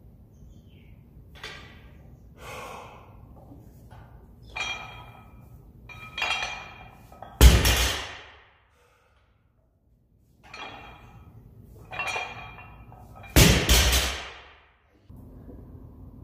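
Two deadlift reps: a heavily loaded barbell with bumper plates set down on the rubber gym floor with a heavy thud, about seven and a half seconds in and again about six seconds later. Each thud comes after a few short breaths.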